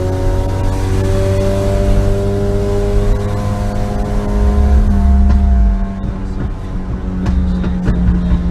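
2018 Mustang EcoBoost's turbocharged 2.3-litre four-cylinder, breathing through a catless open downpipe, running loud with a heavy rumble that surges about two-thirds of the way through. Near the end it gives a quick run of sharp exhaust pops and crackles.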